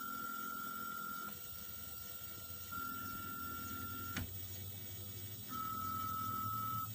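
Cobblebot 3D printer's stepper motors whining in a steady high tone during each print move: three moves of about a second and a half with short pauses between, the last a little lower in pitch, over a low motor hum. A single sharp click about four seconds in.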